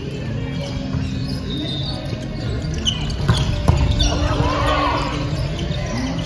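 Volleyball rally: the ball struck sharply, most loudly twice in quick succession a little past three seconds in, amid players' calls and shouts.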